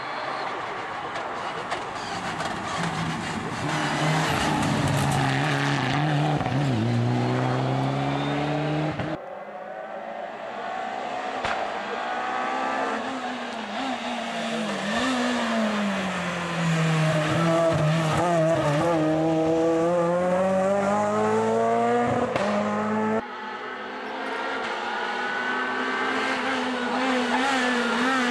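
Rally cars at racing speed on a special stage, their engines revving hard, with the pitch climbing through the gears and falling away. About nine seconds in and again about twenty-three seconds in, the sound cuts abruptly to another car.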